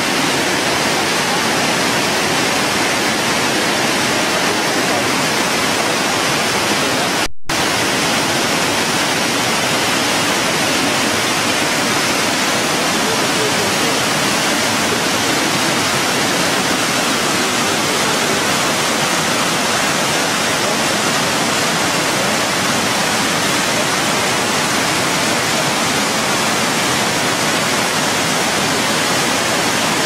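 Probiy waterfall on the Prut river, water pouring over rocks in a loud, steady rush, broken by a split-second dropout about seven seconds in.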